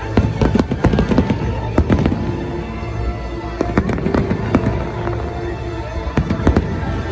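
Aerial fireworks bursting overhead in a quick, irregular run of bangs and crackles, with music playing underneath.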